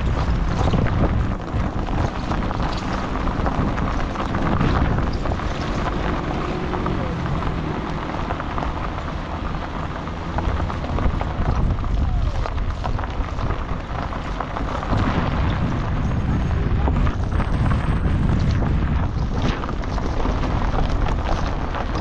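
Waterfall: falling water rushing loudly and steadily, heavy in the low end.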